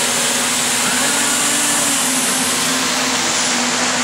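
Steady loud whirring noise of a running machine, with a low hum under it.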